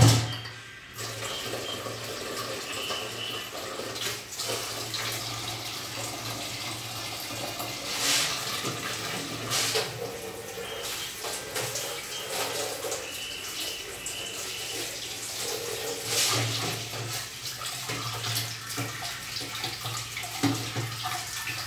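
Kitchen tap running into a steel sink while leafy greens are rinsed in a plastic basin, the water splashing unevenly as the leaves and basin are moved under the stream. A sharp knock right at the start.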